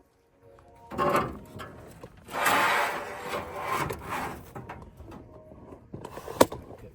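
Scraping and rubbing of replacement sheet-metal floor pans being handled and slid about, loudest for about a second near the middle, with one sharp knock near the end.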